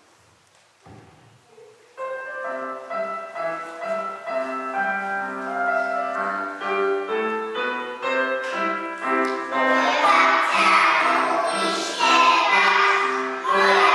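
A few faint knocks, then about two seconds in a song's instrumental introduction starts with a clear melody line. A group of children starts singing along with it near the last third, louder than the introduction.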